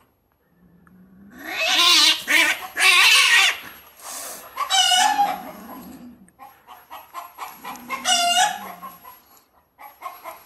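Two domestic cats in a fight, yowling and screeching at each other in long, wavering cries; the loudest run of cries comes about two to three and a half seconds in, with more near five and eight seconds and lower growling between.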